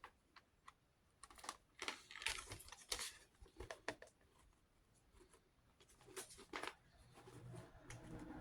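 Faint scattered clicks and rustles of a plastic DVD case and its paper cover sheet being handled as the reversible cover is flipped over, with a low hum coming in near the end.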